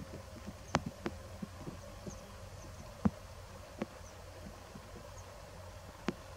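About five sharp clicks and knocks at uneven intervals, the loudest about three seconds in, over a low steady hum, with a few faint high chirps.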